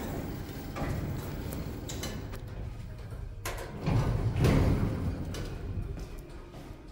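Lift car's sliding doors moving, with footsteps and handling noise on the steel checker-plate floor; a low rumbling, loudest about four seconds in.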